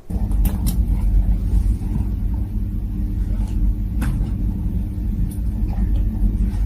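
Steady low rumble with a faint hum, and a few faint clicks.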